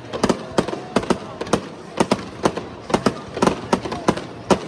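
Fireworks display going off: a rapid, irregular string of bangs and pops, several a second.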